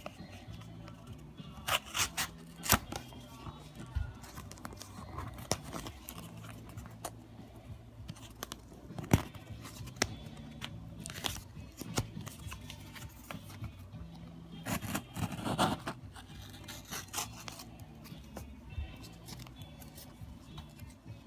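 Soft background music, with scattered sharp clicks and scrapes of small objects being handled and a stretch of packaging rustling about fifteen seconds in.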